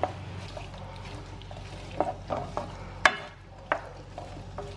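Sliced bell peppers, olives and capers being stirred in oil in a nonstick frying pan, the utensil knocking and scraping against the pan about seven times, loudest about three seconds in, over the steady sound of frying.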